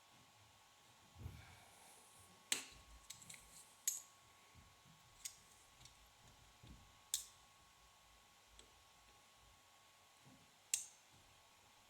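A handful of sharp metallic clicks, spread a second or more apart, from locking vise grips clamped on a CPU's heat spreader as it is twisted in a bench vise. A duller knock comes about a second in, and a faint steady hum runs underneath.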